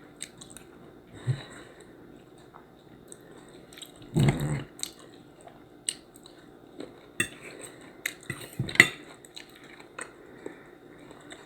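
Eating sounds: quiet chewing with scattered clicks of a fork against a dish. There is a short murmur of voice about four seconds in.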